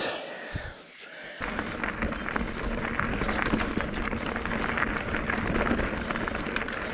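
Mountain bike riding on a dirt trail: steady tyre and wind noise with many small rattling clicks, starting abruptly about a second and a half in.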